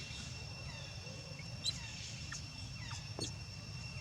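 Insects droning steadily at two high pitches, with a few short chirps about halfway through and near the end.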